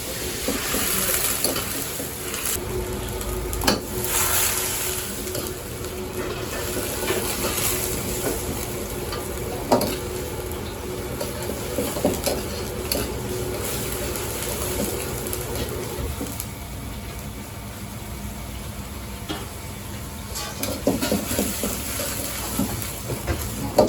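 Fried rice with sausage sizzling in a wok as it is stir-fried, with the metal ladle knocking against the wok a few times.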